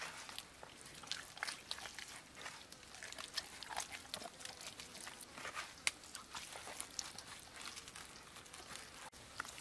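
Wet squelching and slapping of hands rubbing chunky chili paste into a raw pig head: an irregular run of soft squishes and small clicks.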